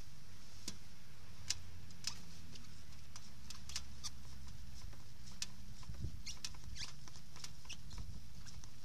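Coil-sprung front-wheel suspension of a paraglider trike compressed under a foot, with short irregular squeaks and clicks from the spring and fork pivots as it is loaded and rocked.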